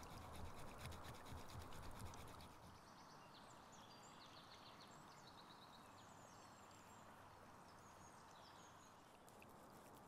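A piece of deer bone being ground back and forth on a flat stone, a faint rhythmic scraping, shaping a primitive tick-remover tool. The scraping stops after about two and a half seconds, leaving small birds chirping faintly, and resumes just before the end.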